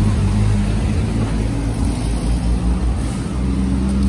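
Road traffic: motor vehicle engines running close by, a steady low hum.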